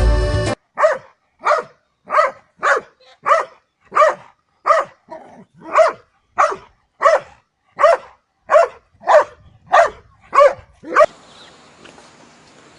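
A dog barking over and over at a steady pace, about a bark and a half a second, for about ten seconds, then stopping.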